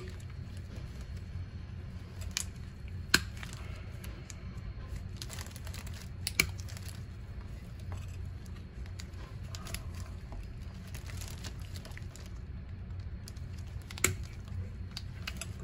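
Red-handled cutters snipping through the old, original rubber boot of a Mercedes CV axle joint: a few sharp snips, the clearest about three seconds in, around six seconds in and near the end, with rustling and crinkling of rubber and the plastic bin liner in between, over a low steady hum.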